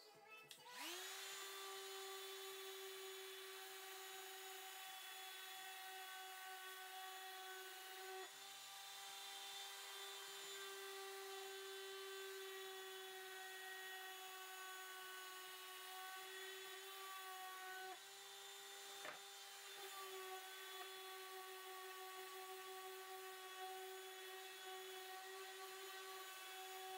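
Cordless random orbital sander spinning up about a second in, then running with a steady whine while sanding the varnish off a hickory hammer handle. Its pitch sags briefly a couple of times.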